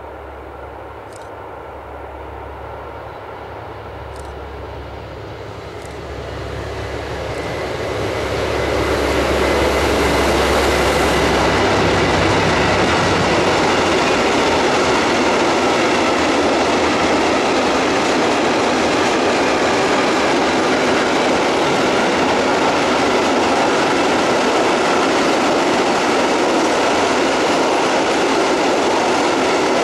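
Diesel-hauled freight train: the locomotive's engine hum grows louder as it approaches over the first eight seconds or so, then a long train of silo and hopper wagons rolls past with steady wheel-on-rail noise and some clickety-clack.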